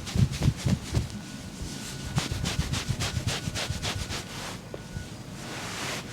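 Quick rhythmic percussive strikes of a back massage, about five or six a second, easing into a softer rubbing sound near the end.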